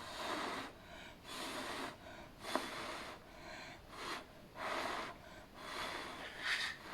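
A person blowing or breathing out hard in short puffs of breath, about one a second, seven in a row.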